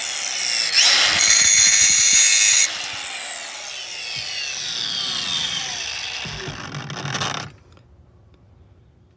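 Drill Doctor 500X bit sharpener's motor running while a drill bit is ground against its wheel, with a loud grinding hiss for about two seconds. The motor then runs on with a falling whine that cuts off about three-quarters of the way in.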